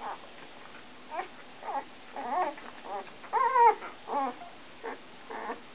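Young golden retriever puppies whining and whimpering, a string of about eight short cries with a longer, louder whine about three and a half seconds in. The puppies are complaining at being put on a smooth glass board.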